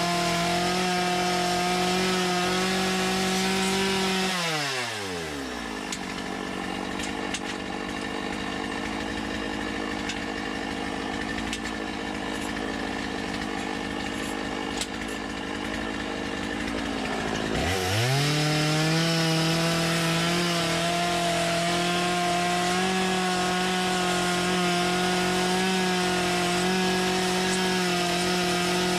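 Two-stroke chainsaw held at high revs while carving beard hair with the side of the bar. About four seconds in it drops back to idle, and at about 18 seconds it is revved back up and held steady.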